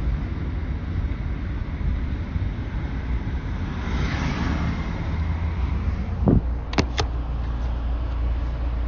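Steady low vehicle rumble, with a short hiss about four seconds in, then a dull thud and two sharp clicks about six to seven seconds in.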